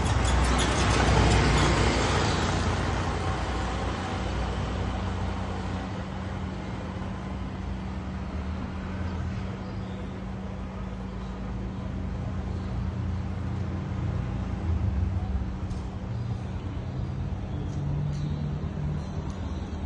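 Street traffic: a vehicle passes close by and fades away over the first few seconds, leaving a steady low hum.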